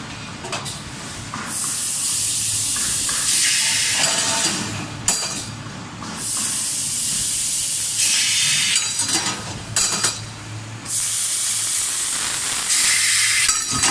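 Laser pipe-cutting machine at work: three spells of loud hissing, each two to three seconds long, with quieter gaps between them and a few sharp knocks.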